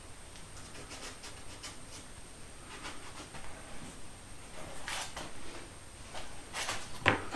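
A plywood board being shifted and lined up by hand on a workbench: quiet scrapes and small wooden clicks, then a sharp knock near the end.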